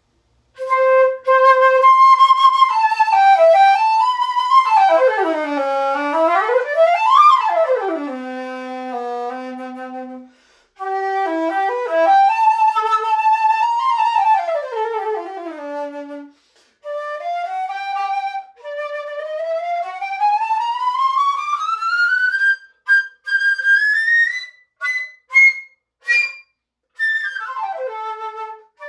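Sankyo CF301 flute with open holes, inline keys and a B footjoint, played solo: phrases of held notes and swooping runs, broken by short rests, then a long rising scale into the high register and short detached high notes near the end.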